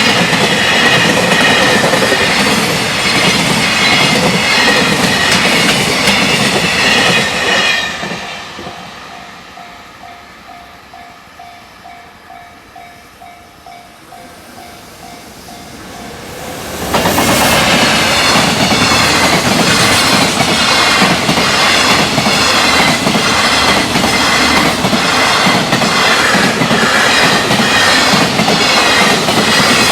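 Freight trains passing at high speed, their wheels clattering rhythmically over the rail joints. The first train fades out about a quarter of the way in, leaving the faint repeating ding of the level-crossing alarm. Just past halfway a second train cuts in suddenly and clatters on to the end.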